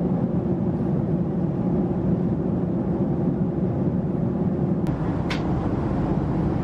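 Steady cabin noise of a Boeing 767-300ER in flight: a constant low rush of engines and airflow, with a short click about five seconds in.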